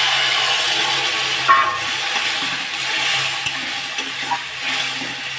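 Water sizzling in a hot kadhai of fried masala, paneer and potato as it is stirred with a metal spatula, the sizzle gradually dying down, with a few light clicks of the spatula against the pan.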